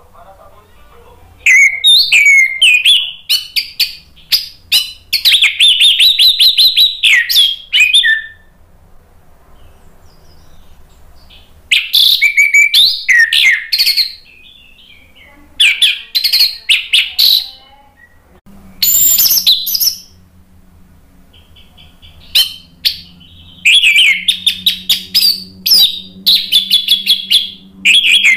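Orange-headed thrush singing in about five bursts of one to six seconds, each a fast run of varied, chattering high phrases, with short pauses between.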